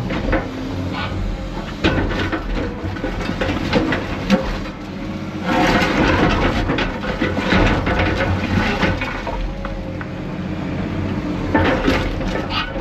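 Heavy diesel construction machinery running while broken concrete is handled: a steady engine drone under continuous scraping, clattering and knocking of concrete rubble, louder in a stretch around the middle and again near the end.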